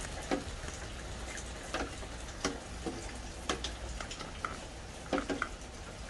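Light rain falling: a steady faint hiss with single drips ticking irregularly, roughly once a second.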